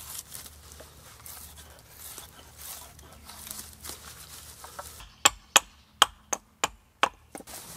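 Handling and rustling, then a hatchet chopping at the end of a peeled cedar pole: about seven sharp, quick strokes of the blade into the wood.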